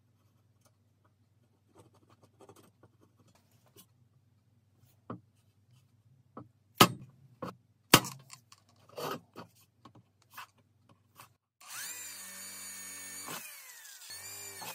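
Light tapping, then two sharp hammer blows about a second apart on a PC tower's sheet-metal lid. Near the end a power drill runs in two bursts, drilling the bolt holes for the handles.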